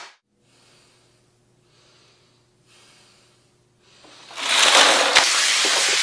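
A few faint breathy sounds, then about four seconds in a loud, dense clatter of many plastic-and-metal wall light switches raining onto a tile floor.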